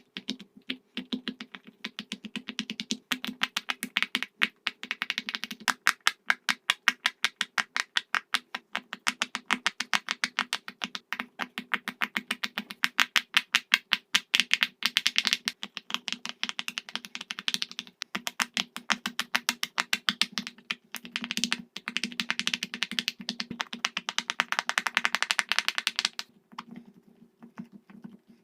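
Silicone pop-it fidget toy bubbles being pushed in, one after another in a fast run of sharp little pops that thin out near the end, over a steady low hum.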